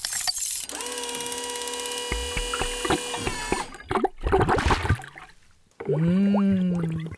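Cartoon sound effects: a quick run of ratcheting clicks, then a steady mechanical buzzing whirr that glides down and stops, a short rush of noise like a splash, and then a long drawn-out vocal 'ahh' near the end.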